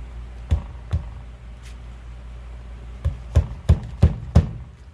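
Sharp knocks from hand work on a CV axle boot clamp: two taps early, then a run of five quicker knocks, about three a second, near the end.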